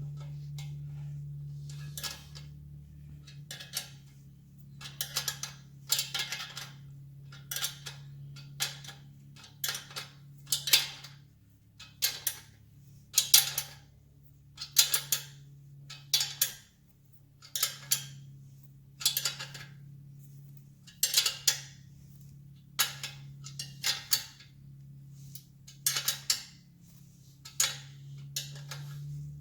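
Hand tools clicking against metal about once a second as the exhaust fasteners on a Norton Commando are tightened, with a steady low hum underneath.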